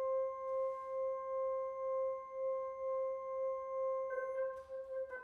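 Two soprano saxophones holding one long note together, its level swelling and fading in a slow, regular pulse. About four seconds in, other shorter notes at changing pitches break in over it.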